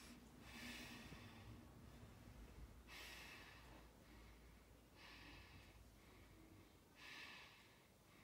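A boy breathing deeply and audibly for a stethoscope check: four faint, hissy breaths, each about a second long and roughly two seconds apart.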